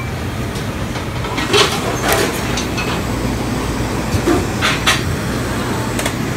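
Handheld butane kitchen torch hissing as its flame browns piped dragon fruit mousse, over the steady rumble of a commercial kitchen. A few sharp clicks and clinks come through.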